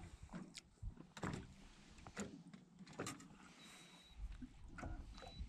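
Scattered clicks and knocks of rod-and-reel handling as a fish is played on a bent rod, with a brief thin whine about three and a half seconds in.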